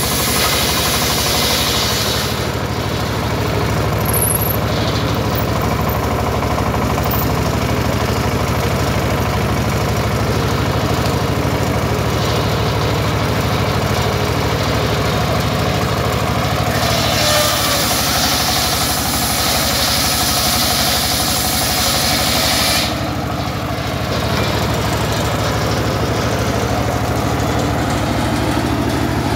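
Homemade circular table saw driven by a small stationary engine, the engine running steadily while the spinning blade rips wooden planks lengthwise. The bright hiss of the blade cutting through the wood is loudest at the start and again for about six seconds past the middle.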